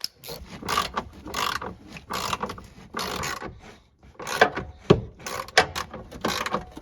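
Socket ratchet clicking in a series of short strokes, about one every half second to second with brief pauses, as it tightens the fog light housing's mounting bolts.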